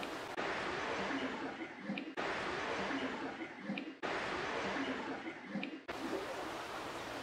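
A short boosted clip of hiss with a brief, faint voice-like murmur near its end, played three times in a row. It is put forward as a disembodied voice saying "I am".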